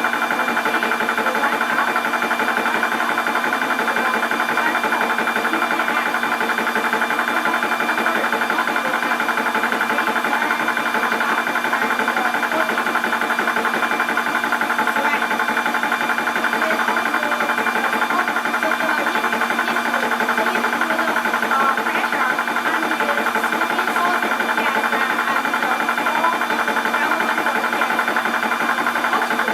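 Portable 12 V high-pressure PCP air compressor running steadily with a fast, even mechanical chatter and a constant hum while it pumps up a small 0.25 L air tank.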